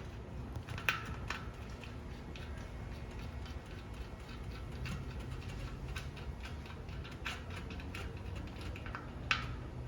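Small scattered clicks and ticks of hands unscrewing the valve stem nut from an electric bike wheel's rim, a little louder about a second in and near the end, over a low steady hum.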